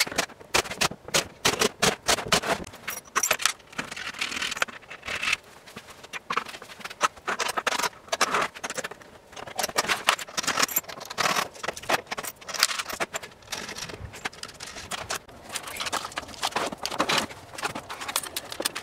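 Rapid, irregular clicking and clattering of small hard objects being handled.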